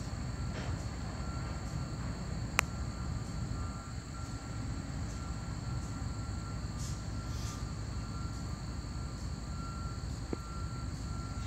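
Diesel locomotive switching railroad cars at a distance: a steady low rumble, with one sharp knock about two and a half seconds in.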